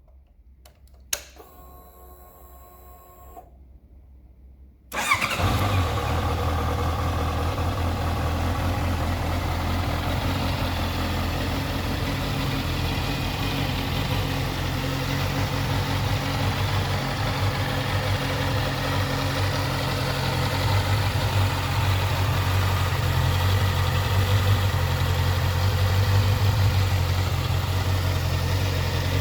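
Honda CBR650F motorcycle: a click and a short faint hum as the ignition comes on, then its 649cc inline-four engine starts about five seconds in and settles into a steady idle through the exhaust.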